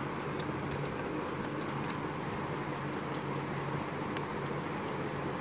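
Steady background hum and hiss, with a few faint, sparse clicks of a small screwdriver working the screws on a laptop's hard-drive caddy.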